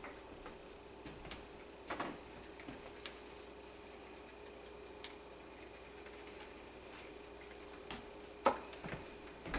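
Faint, scattered clinks and taps of small kitchen utensils and containers being handled and set down on a countertop, a few sharper ones near the end, over a faint steady hum.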